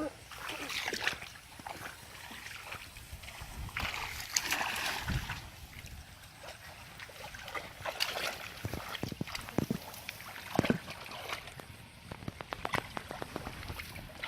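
Water splashing and sloshing in irregular bursts, with scattered short knocks, as a fishing net is worked through the water.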